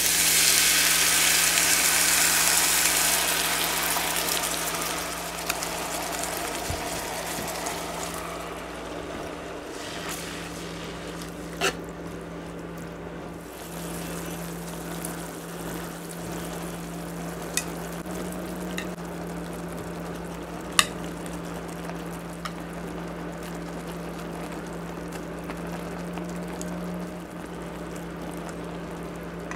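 Sukiyaki sauce hitting a hot frying pan of vegetables sizzles loudly, then dies down over the first few seconds to a steady, quieter simmer. A few sharp clicks of chopsticks against the pan as beef slices are laid in, over a low steady hum.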